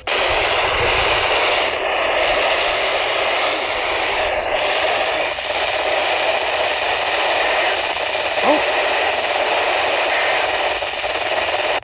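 Steady hiss of FM static from a NOAA Weather Radio receiver tuned to a weak, noisy channel, with only faint traces of the broadcast under it. The recordist puts the weak signal down to tropospheric propagation fading.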